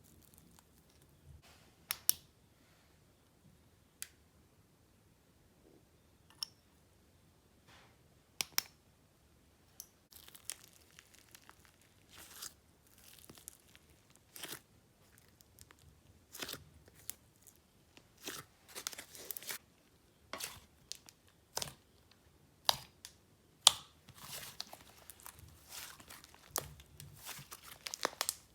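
Slime being poked, squished and stretched by hand, making sticky clicks and pops. These are sparse at first, then turn into denser crackling and tearing sounds from about ten seconds in.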